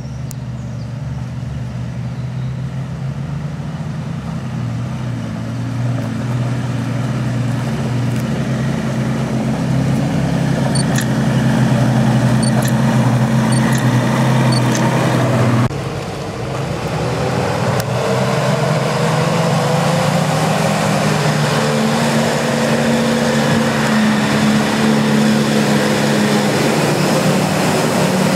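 Nissan Patrol 4x4 engine running steadily and growing louder as the vehicle drives toward the listener on a muddy track. After an abrupt change about 16 seconds in, a second Nissan Patrol's engine revs up, rising in pitch and then holding, as it works through deep mud.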